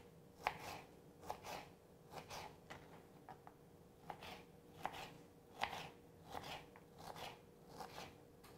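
Kitchen knife dicing Roma tomato on a cutting board: quick, irregular chopping taps, about two a second.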